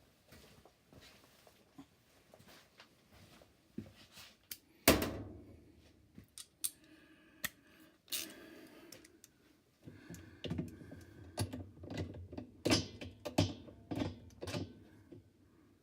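Scattered clicks and taps of plastic and metal parts being handled and seated as a washing machine's agitator is put back on its shaft and its hold-down bolt fitted. There is one sharp knock about five seconds in, and a quicker run of clicks and knocks from about ten seconds on.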